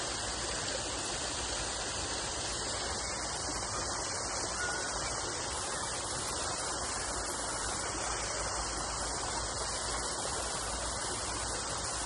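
Steady rushing hiss of a waterfall, an even, unbroken wash of falling water.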